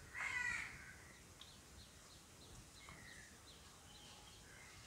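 A crow caws once at the start, then a run of faint, quick high bird chirps follows over quiet room tone, with a single light tap near the middle.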